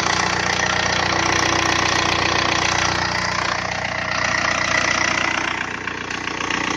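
VW Golf IV's 1.9 TDI (ALH) direct-injection turbodiesel idling steadily with an even diesel clatter. It is fitted with a turbo from the 96 kW TDI and Sprint 764 injectors.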